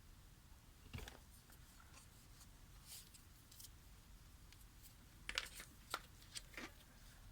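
Quiet handling sounds of a tool and its packaging being unpacked: scattered faint clicks and rustles, with a quick cluster of sharper clicks about five to six and a half seconds in.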